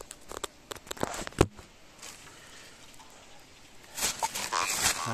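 Handling noises as a fishing line is hauled in by hand: scattered clicks and knocks, a sharp knock about a second and a half in, then a burst of rustling and scuffling near the end.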